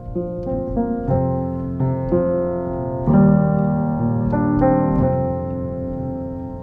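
Background piano music, a melody over held chords.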